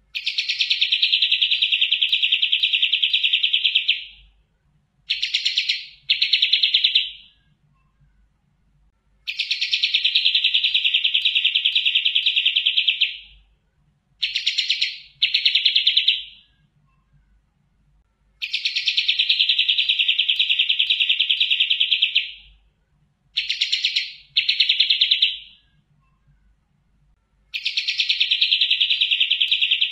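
Kapas tembak songbird singing a rapid, dense trill about four seconds long, followed by two short trills, the whole phrase repeated at even spacing about every nine seconds; three full phrases, with a fourth starting near the end.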